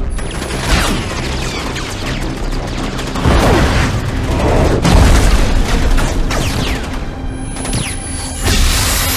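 Action-film sound mix: heavy booms and machine-gun fire with falling whoosh sweeps, over a music score. The loudest booms come about three and five seconds in, and the gunfire thins out near the end.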